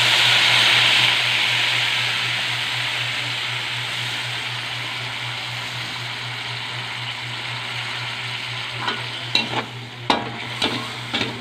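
Soy sauce sizzling in a hot wok of browned pork, loudest right after it goes in and slowly dying down. Near the end a metal spatula scrapes and clicks against the wok as the pork is stirred.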